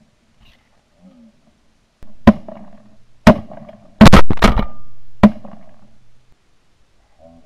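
Shotgun blasts in quick succession: about six shots between two and five and a half seconds in, three of them bunched close together near the middle, each with a short decaying echo.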